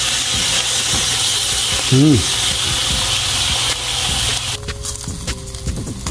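Beef sirloin tip steaks sizzling on an electric grill as they are turned with tongs. A brief voiced 'mm' comes about two seconds in. About four and a half seconds in, the sizzle drops to a softer level with light clicks.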